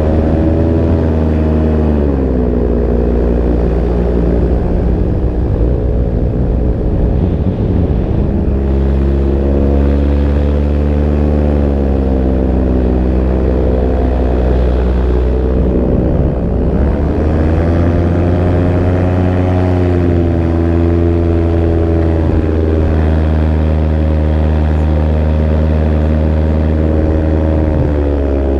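Backpack paramotor's two-stroke engine and propeller running close behind the pilot. Its pitch dips and comes back up as the throttle is eased and reopened: once a second or two in, more deeply about halfway through, and again near the end.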